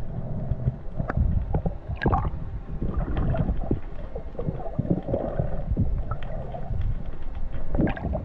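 Underwater ambience heard through an action camera's waterproof housing: a low rumble of moving water with gurgles and many sharp clicks.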